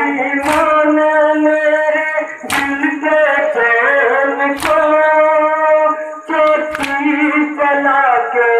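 A man chanting a noha, the Muharram lament, in long held notes. A group beats their chests (matam) in unison to it, a sharp slap about every two seconds, four times.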